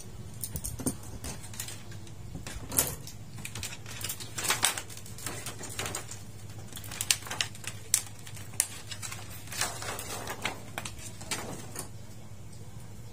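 Irregular clicks, taps and crinkling from handling a TV's LED backlight strip and lifting out its thin plastic reflector sheet, over a steady low hum.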